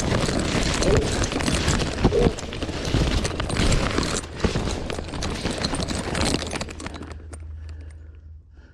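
Dry corn leaves and stalks rustling and crackling against a person pushing quickly through a standing cornfield, with footsteps in the dirt row. The rustling dies away about seven seconds in.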